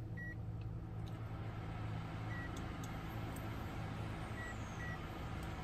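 A portable electric cooktop hums steadily while running, and gives four short high beeps as its touch-panel buttons are pressed.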